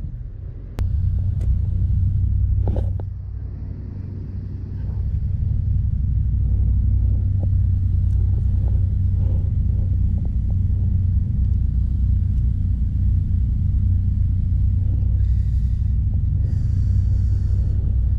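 Steady low rumble of wind buffeting the body camera's microphone, with two short hisses about fifteen and seventeen seconds in.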